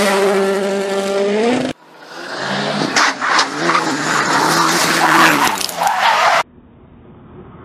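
A rally car's engine revving hard as it slides sideways on loose gravel. It cuts off abruptly, then another rally car approaches at full throttle and goes over a crest with gravel and debris spraying. That sound stops suddenly, leaving a quiet low rumble.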